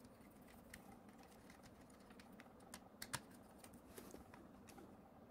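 Faint, scattered small clicks and ticks of a precision screwdriver turning small screws into the 3D printer module's housing, with one slightly louder click about three seconds in.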